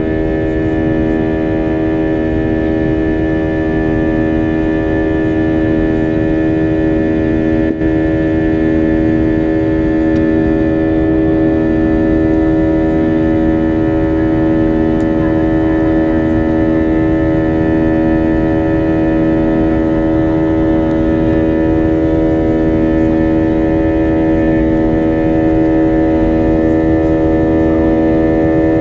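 Airliner cabin drone from the engines in flight: a steady hum of several fixed tones over a low rumble, one tone throbbing slowly about every second and a half.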